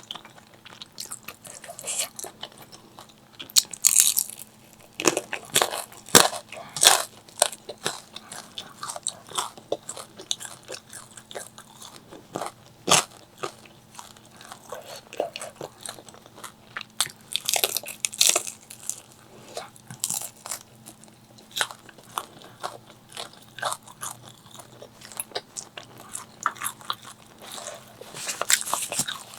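Close-miked eating: crunchy bites and chewing, with irregular crackles throughout.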